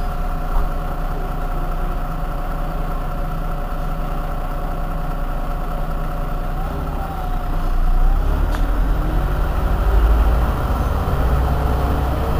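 Irisbus Iveco Citelis 18 articulated bus engine idling steadily while the bus stands still. Its low rumble swells louder about eight seconds in.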